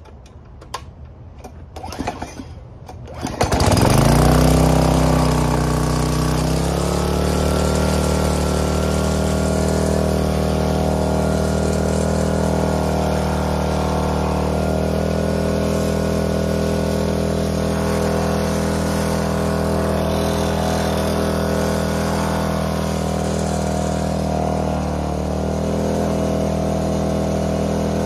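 Small gas pressure washer engine being pull-started: a few pulls on the cord, then it catches about three and a half seconds in, revs up and settles into a steady run. Near the end its pitch dips briefly as the spray wand is triggered and the pump takes up load.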